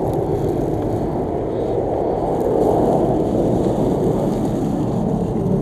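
Low, steady rumble of a large airplane flying overhead, swelling slightly about halfway through.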